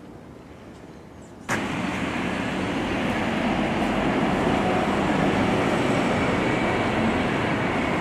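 Steady rushing vehicle noise, a loud even rumble with hiss, that cuts in suddenly about a second and a half in over a quiet outdoor background.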